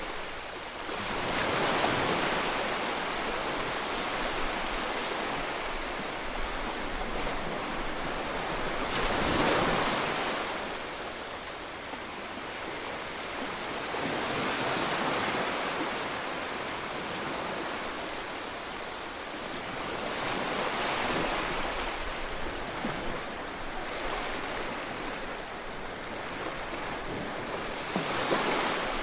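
Small sea waves breaking and washing up a sandy beach, the surf swelling and fading every five to seven seconds.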